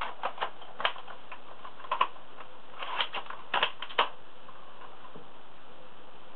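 Airsoft L96 bolt-action sniper rifle being cocked: a string of sharp clicks and clacks from the bolt in small clusters over the first four seconds, then it stops.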